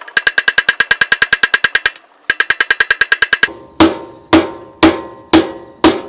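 Rapid, even metallic clicking, about a dozen a second, broken by a short pause. Then five loud, ringing hammer blows on metal about half a second apart, struck to drive a stuck sprocket off a bike's rear axle.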